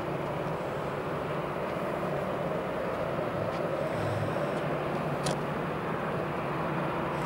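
Steady mechanical drone with a low hum running throughout, and one short sharp click about five seconds in.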